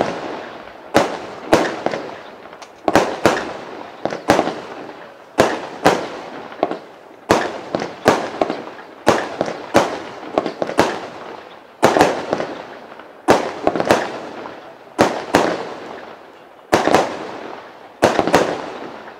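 Lesli P.I.M.P. fireworks cake firing shot after shot. Sharp aerial bursts come roughly one or two a second, some in quick pairs, and each one fades away before the next.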